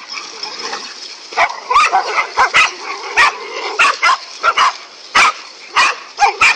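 Dogs barking at a large snake they have surrounded: short, sharp barks, few in the first second and then one about every half second.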